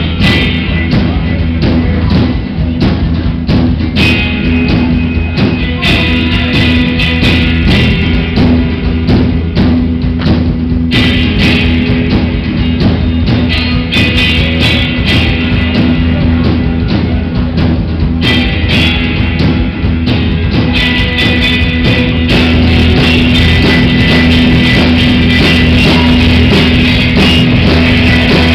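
Live rock band playing loud, with drum kit and electric guitar, heard from within the audience; it gets a little louder and steadier about two-thirds of the way in.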